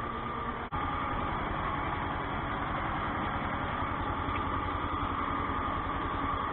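Ursus C-360 tractor's diesel engine running steadily under load, heard from inside the cab, while it pulls a potato hiller; the engine is being run in. A momentary dropout in the sound under a second in.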